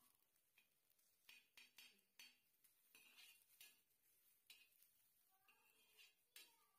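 Near silence, with a few very faint clinks of a metal spatula against the pan as sliced onions are stirred.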